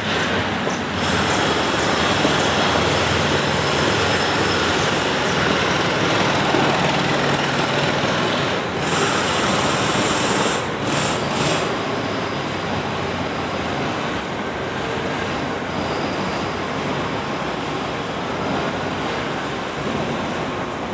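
Dense, steady construction-site machinery noise, a continuous rumbling din with a low engine-like hum through the first several seconds.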